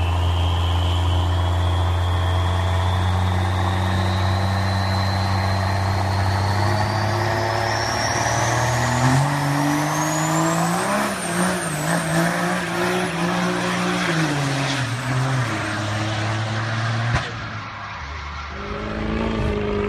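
Turbo-diesel pickup truck engine building boost with a rising turbo whistle, then accelerating hard, its note climbing and falling through the gears while pouring out black smoke.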